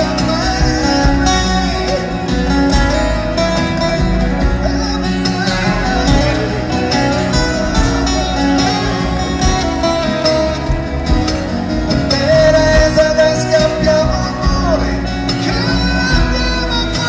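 A pop band playing live over a PA, with acoustic guitars, bass, drums and a singer's sustained, wavering melody line, heard from among the audience.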